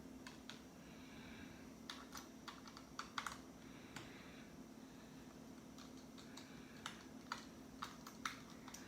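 Small screwdriver working the tiny screws out of a Kindle's case: faint, irregular light clicks and ticks.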